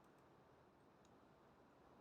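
Near silence with a few faint crackles from a wood fire burning: a couple near the start and one about a second in.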